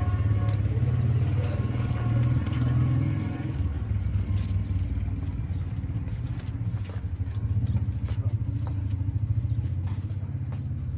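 A low, steady engine running, with a few faint clicks over it.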